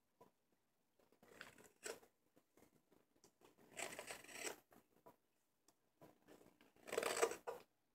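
Hook knife cutting into the bowl of an American sycamore spoon: a few faint scraping, shaving strokes in the wood, the loudest near the end.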